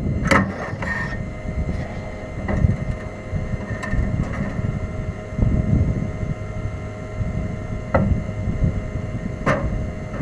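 Wind rumbling on the microphone, with several sharp knocks and clunks as someone handles the stopped UTV race car.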